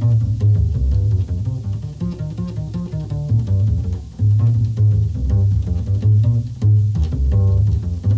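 Upright double bass played pizzicato in a jazz setting, a run of plucked notes stepping up and down in pitch at about two to three a second.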